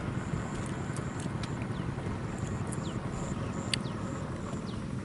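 Outdoor ambience: a steady low rumble with repeated short, high-pitched chirps and a few quick falling whistles.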